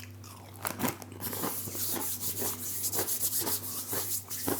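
Crunching and chewing thick hand-cooked crisps: a run of short, crackly crunches, joined about a second in by a steady high rustling hiss.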